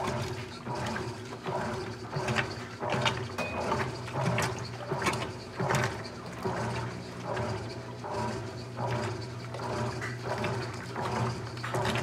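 GE top-load washing machine agitating a load: the agitator churns clothes back and forth in the water, with a splashing swish about every second over a steady low hum from the drive.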